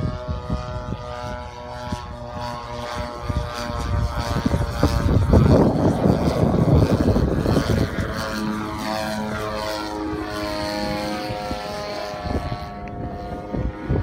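Desert Aircraft DA-60 60cc gasoline two-stroke engine of a large RC Extra 300 aerobatic plane, turning a 24x8 propeller in flight. The engine note rises and falls in pitch as the plane manoeuvres and passes, loudest about six seconds in.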